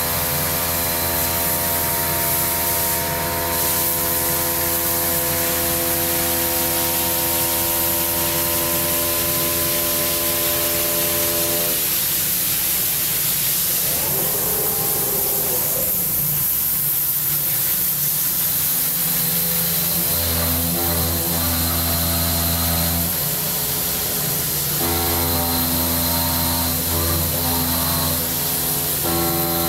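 CNC stone milling machine's spindle running as its water-cooled tool mills a solid stone block, a steady machine hum over the hiss of coolant spray. About twelve seconds in the hum fades and the spray noise dominates, then the hum returns and steps up and down toward the end.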